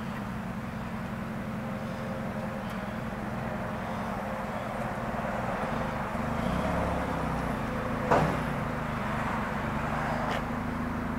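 Tow vehicle's engine running steadily at low speed as it pulls a boat trailer slowly forward, with a single sharp knock about eight seconds in.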